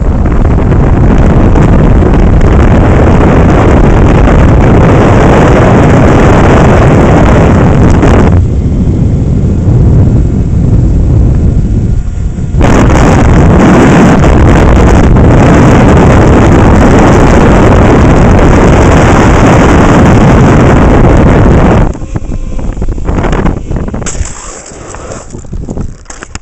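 Loud wind buffeting the camera microphone during a fast zip line ride, a steady distorted rush that eases for about four seconds in the middle, then comes back and drops away sharply near the end as the ride slows.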